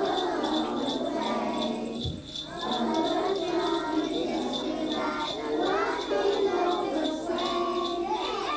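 Young children singing along to music, with jingle bells shaken in a steady beat and a short break about two seconds in.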